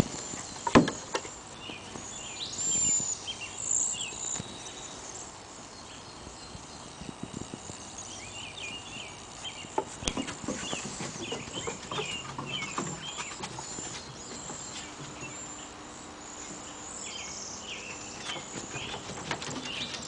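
Small birds chirping over and over in the background, with scattered knocks and light patter from a puppy's paws scampering across grass and a wooden deck. The loudest sound is a single sharp thump about a second in.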